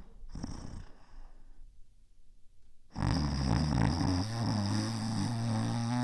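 A drawn-out, low-pitched human body noise, such as a burp or fart, starts suddenly about three seconds in and holds a fairly steady pitch. Before it, a short sound fades out in the first second, followed by a quiet gap.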